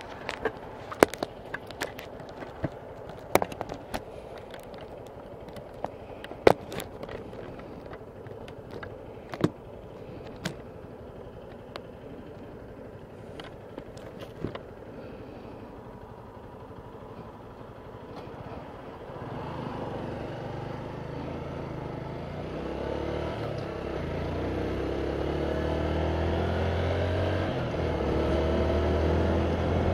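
Handling clicks and knocks on the recording device for the first part, over low background noise. About two-thirds of the way through, a small motorcycle engine pulls away and accelerates, louder and rising in pitch in steps.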